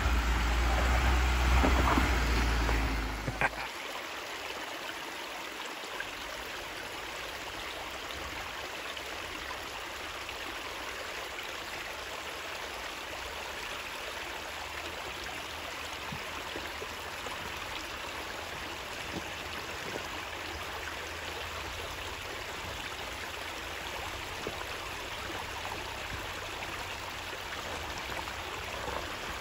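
Jeep Gladiator engine running with a deep low rumble as the truck crawls over logs, with a sharp knock about three seconds in. The engine then cuts off abruptly, leaving a steady, even rushing noise like running water for the rest.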